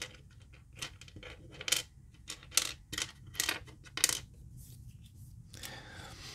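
Loose plastic Rubik's Cube pieces clicking and clattering against one another and a hard surface as they are picked through. There are about seven sharp clicks in the first four seconds, then a softer scraping near the end.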